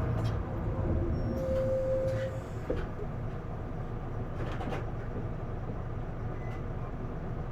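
Interior sound of an Isuzu Erga diesel city bus on the move: a steady low engine and road rumble that drops to a quieter level about two and a half seconds in. A brief high whine comes in just before the drop, and a few light clicks and rattles follow.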